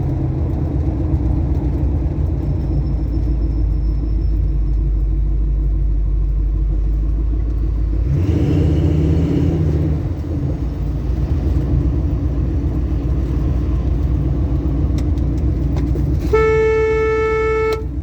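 Inside a classic Ford Mustang Mach 1 on the road: a steady drone of engine and road noise, whose engine note changes about eight seconds in. Near the end a car horn sounds once, a single steady note lasting about a second and a half.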